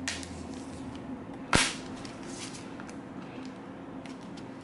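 A small cardboard product box being handled, with one sharp snap or tap about a second and a half in and faint rustling around it.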